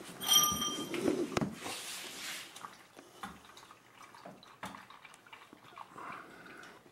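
Engine coolant draining from a car's radiator drain plug into a drain pan: a thin steady stream splashing into the pooled fluid. A short ringing clink near the start.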